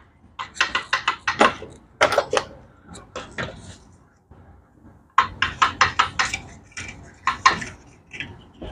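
Metal parts and hand tools clinking and clattering against a motorcycle transmission's bare aluminium gearbox casing as it is worked on by hand, in several short bursts of sharp clicks.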